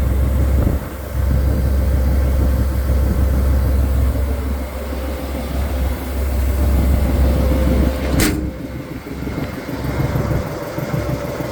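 Chevrolet tire service truck engine running at idle with its PTO-driven air compressor engaged and building air pressure, a steady low rumble with a constant hum. A single sharp knock about eight seconds in.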